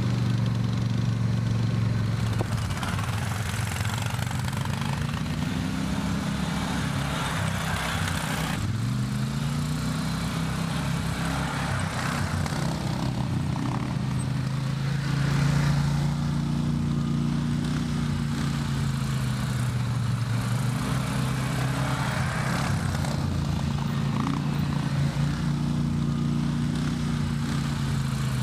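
Polaris MV 850 ATV engines running, with their pitch rising and falling again and again as the riders open the throttle and ease off.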